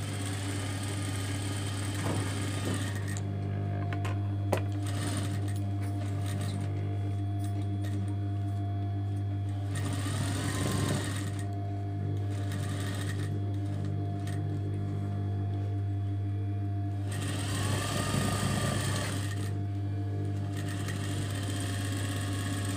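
Industrial single-needle sewing machine edge-stitching denim, running in several spells with short pauses between them, over a steady low hum.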